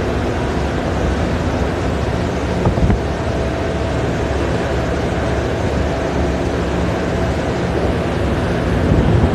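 Steady machinery drone of a floating crane's shiploader conveyor loading coal into a bulk carrier, with a faint constant hum in it. Two brief low thumps come about three seconds in and near the end.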